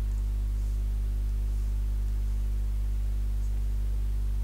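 Steady electrical mains hum, a low tone with a ladder of evenly spaced overtones, over a background hiss from the recording chain. A faint click comes about three and a half seconds in.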